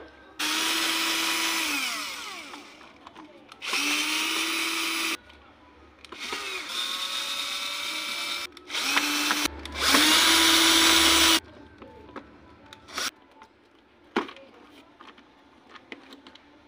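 Power drill/driver backing screws out of a plastic tool housing: five short runs, each spinning up to a steady whir and winding down as the screw comes loose, the last one the loudest. Light clicks and taps of handling follow near the end.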